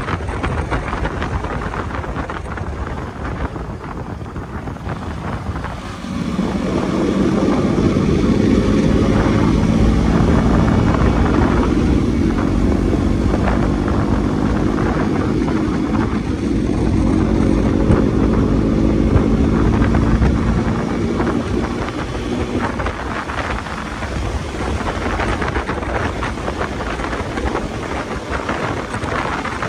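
Motorcycle engine running on the move, with wind buffeting the microphone. The engine tone grows louder about six seconds in and drops back about twenty seconds in.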